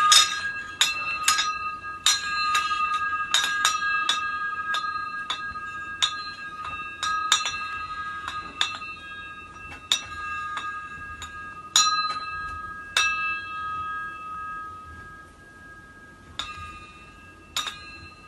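Glass shades of a ceiling light fixture clinking against one another as the fixture sways in an earthquake, each knock leaving a bell-like ring. The knocks come irregularly, several a second at first, then thin out and grow fainter after about twelve seconds, with a few more near the end.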